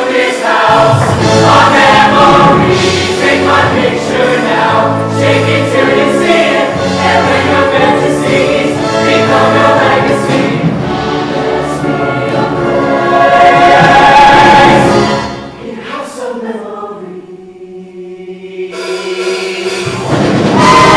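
Show choir singing with musical accompaniment, loud and full for most of the stretch, then thinning about fifteen seconds in to a quiet sustained chord before swelling again near the end.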